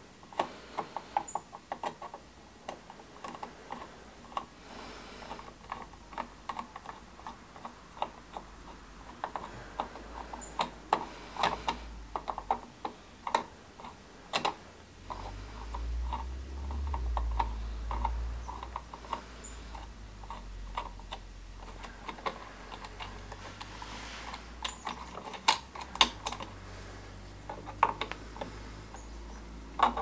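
Hand screwdriver backing out the mounting screws of an electrical outlet: a long run of small, irregular clicks and ticks of metal on metal, with a low rumble for a few seconds midway.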